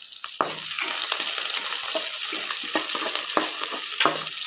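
Chopped green chillies sizzling in hot oil with mustard seeds, cumin and curry leaves in an aluminium kadai: the tempering for chitranna. A metal spatula stirs them, scraping and knocking on the pan a few times. The sizzle grows louder about half a second in.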